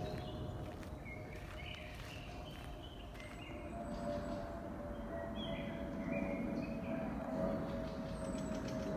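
Forest ambience: birds chirping in short repeated notes over a low, uneven rustle of footsteps on the forest floor, with a steady faint hum underneath.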